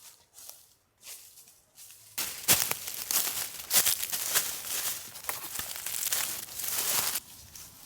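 Crinkling and rustling of something being handled, starting suddenly about two seconds in and stopping about five seconds later, after a few faint rustles.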